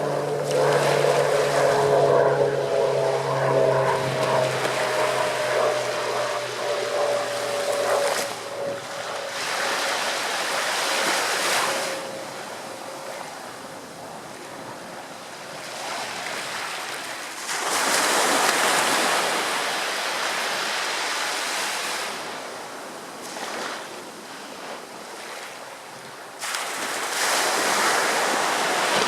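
Ocean surf breaking on the shore in repeated hissing surges a few seconds apart. Over the first several seconds a droning hum, slowly falling in pitch, fades away.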